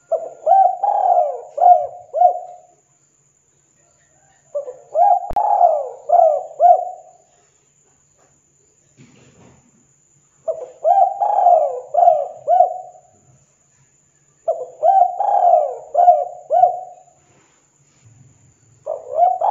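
Spotted dove (tekukur) cooing: repeated phrases of four or five coos each, about two and a half seconds long, coming every four to six seconds, with a fresh phrase starting near the end.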